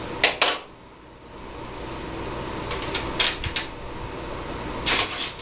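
Sharp clicks and snaps from working a cat5 cable end by hand: two near the start, a quick cluster about three seconds in and one more near the end, over a steady low hum.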